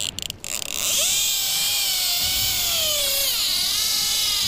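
Fishing reel drag whining as a hooked fish pulls line off the reel, starting about half a second in and running on steadily with a wavering pitch over a high hiss.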